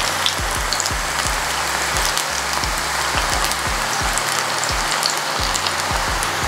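Hot oil deep-frying in a stainless steel pan, a steady sizzle with scattered sharp crackles, as handfuls of chana dal pakoda dough are crumbled into it.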